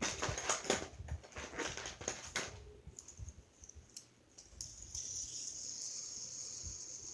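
Plastic fidget toys being handled: a quick run of clicks and rattles, then a steady high hiss for about three seconds near the end.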